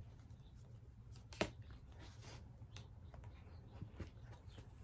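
Hands handling a cardboard album sleeve and CD: scattered soft taps and rustles, with one sharper click about a second and a half in, over a low steady hum.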